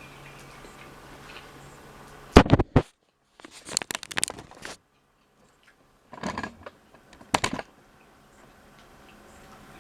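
Eating noises close to the microphone: a few short, loud bursts of crunchy chewing and biting, with quiet gaps between them.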